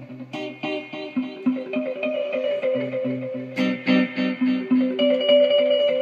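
Background music: plucked guitar notes in a steady rhythm.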